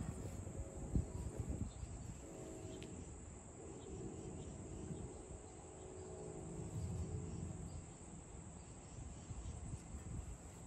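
Steady high-pitched drone of insects such as crickets, with a soft thump about a second in.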